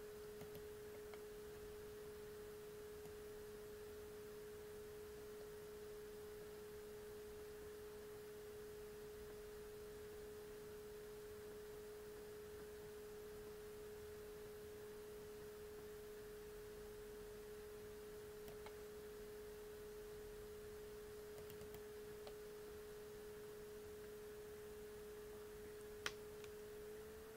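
Faint steady tone at one unchanging pitch, with a single click near the end.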